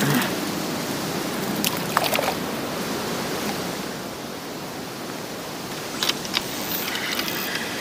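Steady rush of strong wind on the microphone mixed with choppy water at the shore, with a few short clicks around two seconds in and again near six seconds.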